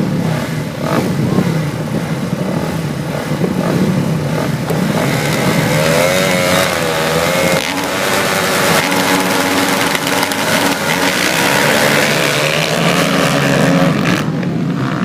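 A pack of flat-track racing motorcycles revving and accelerating away on a single-file restart. Their engine notes rise and fall in pitch about five to eight seconds in.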